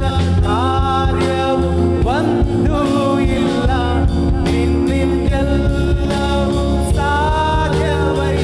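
Kannada Christian worship song: a voice singing over instrumental accompaniment with held chords and a steady beat.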